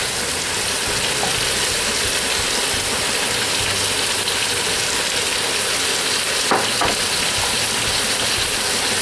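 Pork loin searing in a hot Dutch oven with butter and brown sugar, a steady sizzle. Two short knocks come about two-thirds of the way through.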